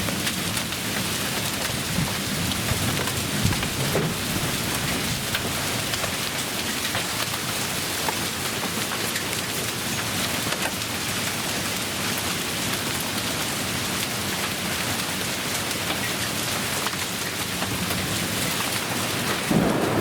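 Heavy rain pouring down steadily, dotted with sharper taps of single drops or stones striking hard surfaces.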